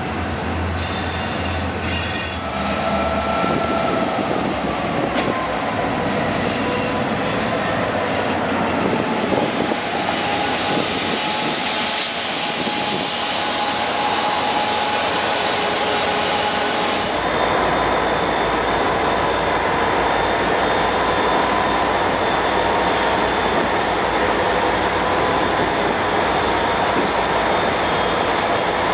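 Diesel freight locomotive passing close by. Its engine runs under a high whine that falls in pitch over the first ten seconds. It grows loudest about ten seconds in, and a steady high whine and squeal follow as it rolls past.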